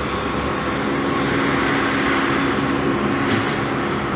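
Steady background noise with a faint mechanical hum.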